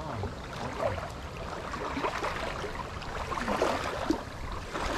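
Steady wind noise and lapping water, with small clicks and rustles of fishing tackle being handled.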